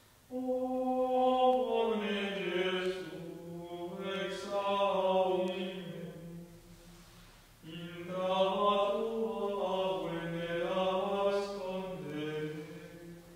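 Slow sacred chant sung as a single melodic line of held notes moving in small steps. It comes in two long phrases, with a brief pause for breath about seven seconds in.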